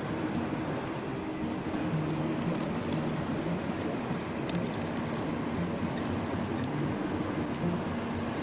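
Steady rushing noise with scattered light crackles and clicks.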